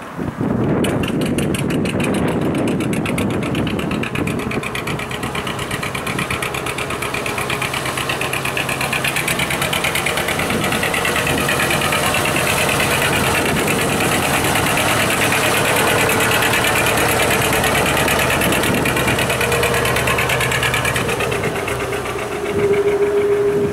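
Bolinder-Munktell BM 1052 boat engine running steadily with an even, rapid firing beat, driving the boat under way.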